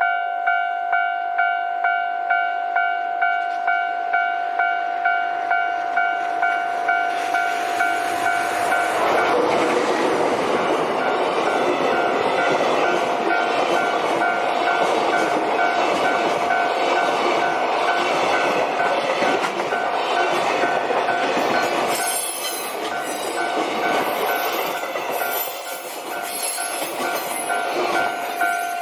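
Japanese level-crossing alarm bell ringing with a steady repeating ding. About eight seconds in, a JR Freight DF200 diesel-electric locomotive and its freight train pass, and the run and wheel clatter over the rails go on for some twenty seconds. The bell is heard alone again near the end.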